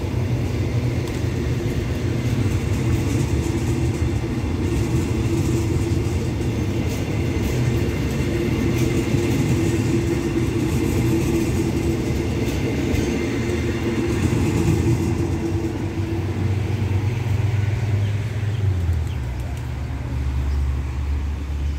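Passenger train's carriages rolling out of the station: a steady rumble of steel wheels on the rails. A low steady hum comes in near the end.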